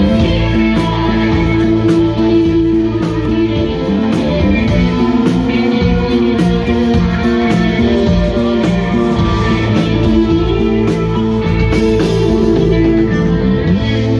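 A live psychedelic rock band playing: electric guitars and keyboards over a moving bass line, with drums keeping a steady cymbal beat.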